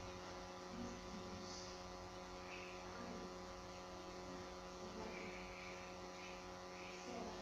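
A low, steady electrical hum with faint, indistinct background sounds.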